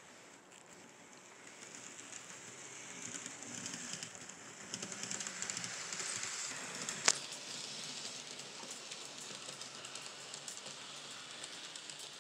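N scale model passenger train running on the layout track, a light rattle of wheels and motor that builds over the first few seconds and eases toward the end. One sharp click about seven seconds in.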